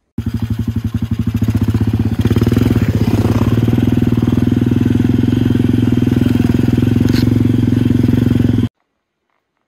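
Dirt bike engine running under throttle while being ridden, getting louder about two seconds in and then holding a steady pulsing note. The sound cuts off abruptly near the end.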